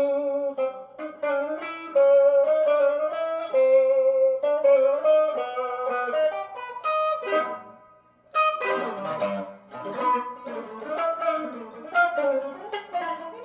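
Electric guitar played clean, picking a melody of single notes and short phrases; it stops briefly about eight seconds in, then comes back with a strum and more picked notes.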